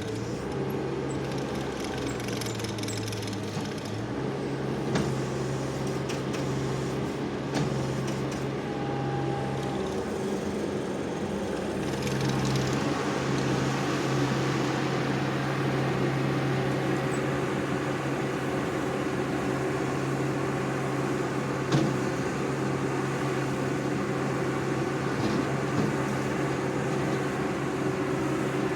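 ASV RT-40 compact track loader's diesel engine running steadily while stripping topsoil. The engine note dips about four seconds in and changes again about twelve seconds in, with a few sharp knocks from the machine's work.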